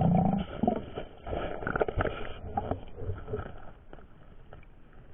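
Muffled, irregular knocks, scrapes and water movement heard through a camera held underwater among the stones of a shallow river bed, loudest at the start. The water dulls the sound.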